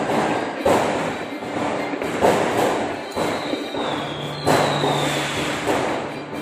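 Aerial fireworks shells bursting in quick succession, roughly once a second, each bang with a rumbling tail, heard through a television's speaker; a thin falling whistle sounds twice about halfway through.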